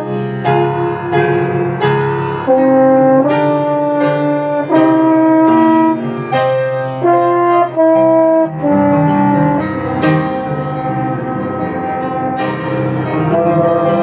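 Instrumental music: a French horn playing a melody over piano. About eight and a half seconds in, the notes become longer and held over a fuller low accompaniment.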